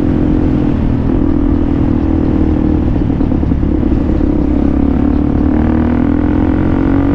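Single-cylinder four-stroke motorcycle engine running at cruising speed under the rider, heard from the helmet, with low wind rumble. Its pitch dips a little past halfway and climbs again near the end as the throttle eases and is rolled back on.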